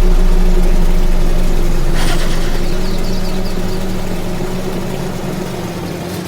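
ZIL-130 truck's V8 petrol engine running at a steady low drone that gradually fades away. There is a brief hissing rush about two seconds in.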